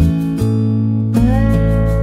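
Background music with acoustic guitar playing chords; the chord changes about a second in.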